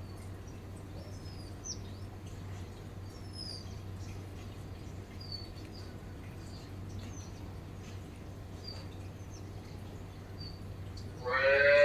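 Sparrows chirping: short, high chirps every second or so over a steady low hum. Near the end a loud, pitched animal call cuts in over them.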